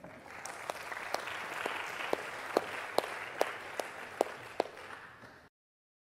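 Audience applauding, with a few louder individual claps standing out; it fades a little and cuts off suddenly near the end.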